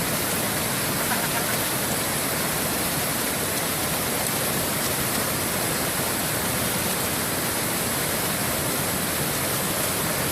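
A river swollen after a typhoon, its fast water rushing in a steady, loud roar with no break.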